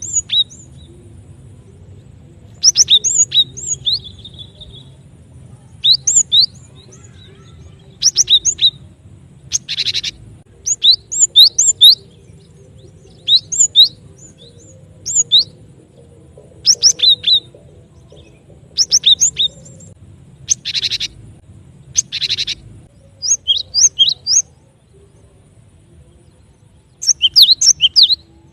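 Cinereous tit (glatik batu) calling, played as a bird-lure recording: short groups of sharp, high chirps every second or two, with a few harsh buzzy churrs mixed in. The calls pause briefly near the end.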